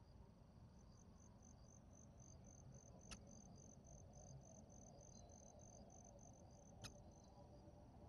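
Faint insect chirping: a fast, even series of high chirps that starts about a second in and stops near the end, with a second, fainter chirping insect behind it. Two sharp clicks, a little after three seconds and near the end.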